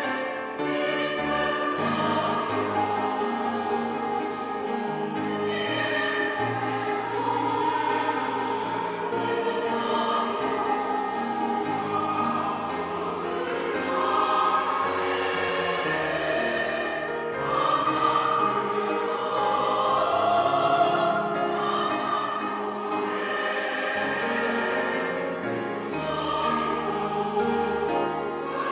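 Mixed church choir of men's and women's voices singing an anthem in Korean, holding notes in harmony.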